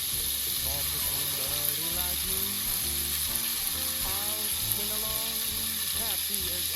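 Food frying in hot oil in a pan, a steady sizzle that starts abruptly just before and holds throughout, with an instrumental passage of a song underneath.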